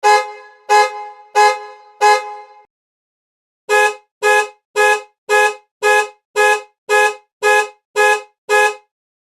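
Car horn honking in short beeps: four toots each trailing off, then after a pause about ten quicker, evenly spaced toots.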